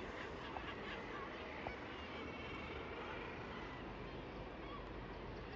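A seabird colony calling: a chorus of many overlapping bird cries from the nesting cliffs, faint, over a steady hiss.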